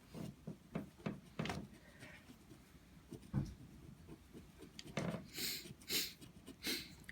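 A scratch-off lottery ticket being scratched: a string of short rubbing strokes and light taps, with a few louder scraping strokes late on.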